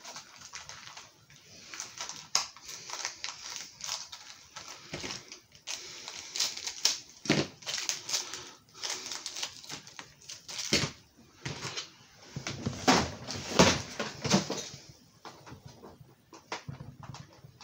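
Hard plastic toy helicopter parts being handled and pressed together as fins are fitted: irregular clicks, taps and knocks with some rustling.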